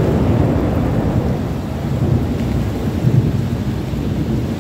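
Heavy rain pouring onto a flooded street, with a steady low rumble underneath.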